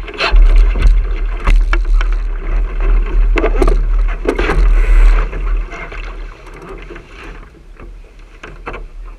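Wind buffeting the microphone of a camera mounted on a racing sailing dinghy, over water rushing and splashing along the hull, with scattered knocks and slaps. The buffeting eases off about two thirds of the way through.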